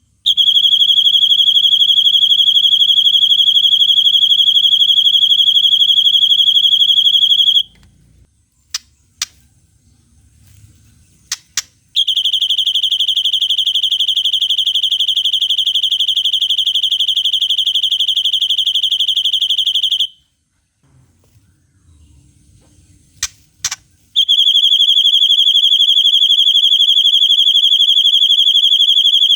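Long 'cililin panjang' trill, a very fast, unwavering high-pitched trill held on one pitch for about seven to eight seconds at a time, heard three times with a few short sharp chirps in the gaps between.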